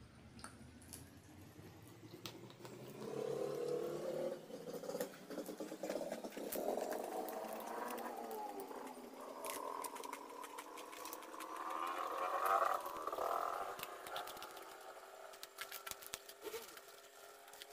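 Crackling clicks from handling and eating crispy battered fried eggplant, under a louder humming drone of unclear source. The drone rises slowly in pitch over about ten seconds and fades near the end.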